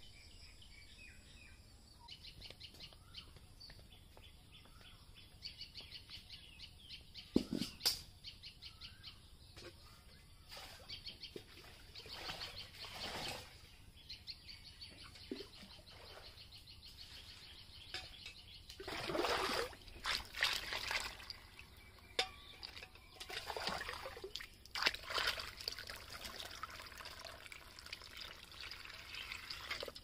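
Water scooped from a pond and poured into metal buckets, in several splashing bouts over the second half, with birds chirping in the background.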